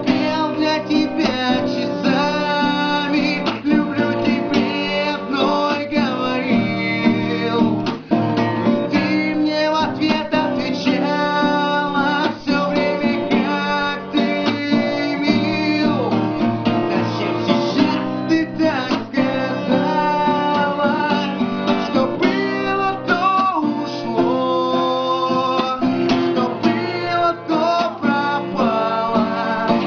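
Acoustic guitar played in a steady accompaniment, with a man singing to it.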